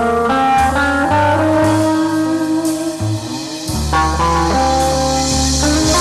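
Archtop hollow-body electric guitar playing a jazz tune, with several notes sounding at once as held chords over low bass notes that change about every second.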